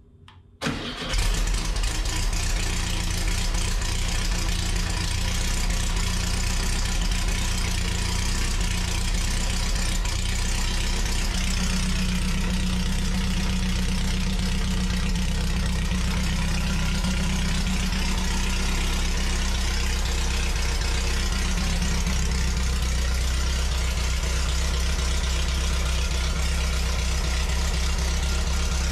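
Air-cooled Volkswagen Type 1 flat-four engine starting about a second in, then running steadily. This is its first run after new pushrod tubes were fitted and the valves adjusted.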